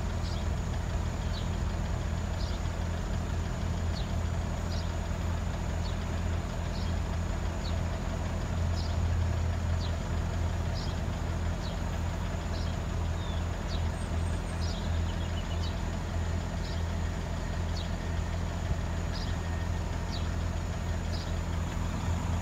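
Road vehicles, a lorry and a van, idling in a queue at a closed level crossing: a steady low engine hum. Faint short high chirps sound about once a second over it.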